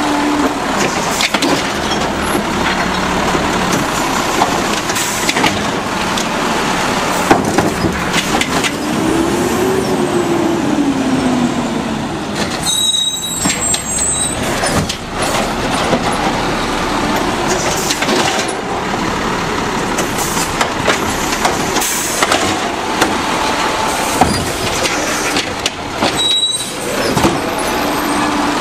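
Automated side-loading recycling truck with an Elliptical body working the curb: its engine runs while the hydraulic arm lifts and dumps blue recycling carts. The run of sharp knocks and bangs is the carts and the arm striking the hopper, and the engine pitch rises and falls once about ten seconds in.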